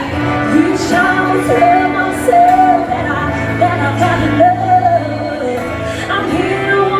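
Live country band playing, with a woman singing long held notes over bass and drums, in a large hall.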